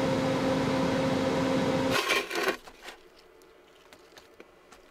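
A small motor running with a steady hum and hiss, cutting off about two seconds in, followed by a brief clatter and a few light clicks.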